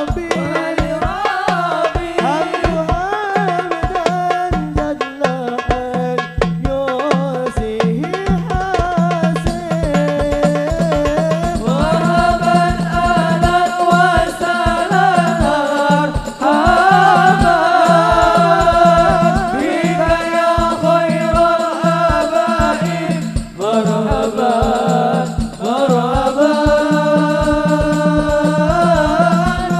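Hadroh music: a sholawat qasidah sung by voices in long, gliding melodic lines over frame drums beating a steady rhythm.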